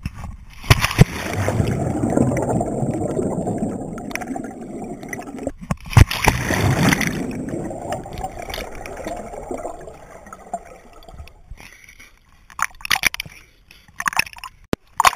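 Muffled underwater gurgling and sloshing in a swimming pool, heard through a GoPro's waterproof housing, with sharp hits about a second in and around six seconds in. It fades after the middle, then gives way to short crackling bursts near the end.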